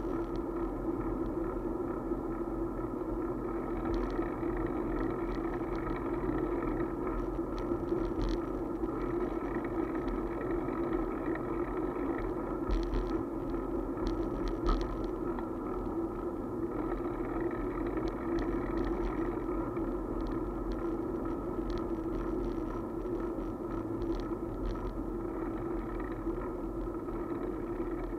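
Steady riding noise of a bicycle rolling along a paved bike path, heard from the moving bike: an even rumble with a constant hum and scattered light clicks and rattles.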